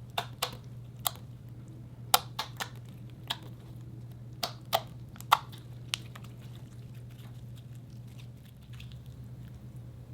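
Slime being squished and worked by hand, giving a quick run of sharp pops and clicks as air pockets burst, which thin out after about six seconds. A steady low hum lies underneath.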